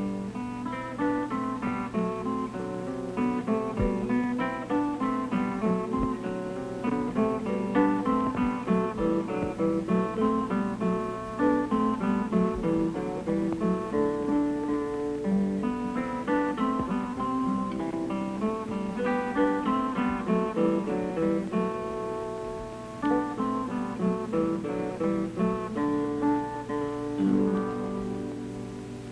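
Background music: acoustic guitar played in quick plucked notes, over a steady low hum, fading near the end.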